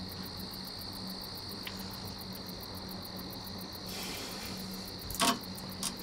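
Steady high chirring of crickets, pulsing evenly, over a faint low hum. A soft breathy hiss rises about four seconds in, and a brief louder sound comes just after five seconds.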